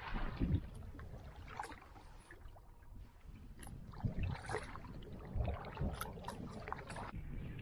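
Canoe moving over choppy, wind-ruffled water: small waves splashing and gurgling against the hull, with a few low thumps.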